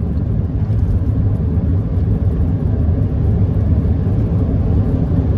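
Steady road and engine rumble heard inside the cab of a moving vehicle at road speed: a low, even drone.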